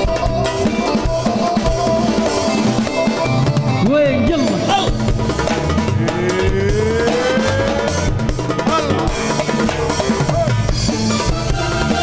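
Live band playing an Arabic pop song's instrumental passage, with the drum kit prominent. About six seconds in, one instrument plays a long rising pitch glide.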